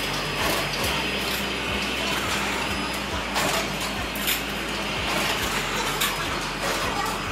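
Egg-grading and tray-stacking machinery running: a steady motor hum under a busy mechanical clatter, with irregular clicks and knocks from the tray-handling mechanisms.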